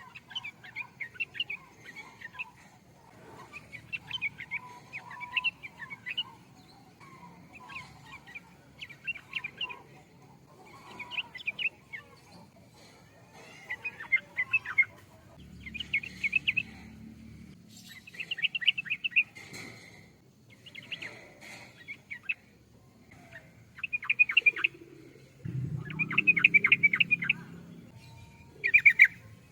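Yellow-vented bulbul (trucukan) singing: short, rapid chattering phrases repeated about every two seconds, the loudest near the end.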